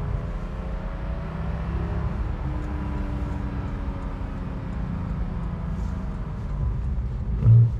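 The Porsche 718 Cayman GTS's 4.0-litre naturally aspirated flat-six engine running while the car drives, its pitch sinking slowly, with a short louder burst near the end.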